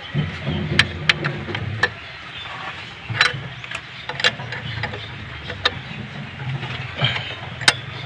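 Low, uneven rumble of a vehicle engine with about a dozen sharp metallic clicks and taps scattered through it.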